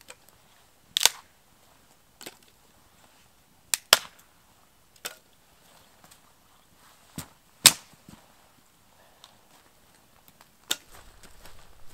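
Dry wood cracking and knocking as branches are snapped and set in place: about eight sharp cracks at irregular intervals, the loudest about two-thirds of the way through.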